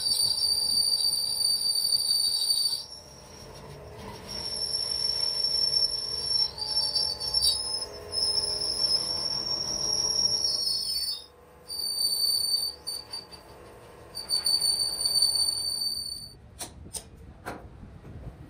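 Lathe cutting tool squealing against a spinning steel truck wheel rim: a high-pitched metallic whine that comes and goes, breaking off about three seconds in and again around eleven seconds, and stopping about sixteen seconds in. A few short metal knocks follow near the end.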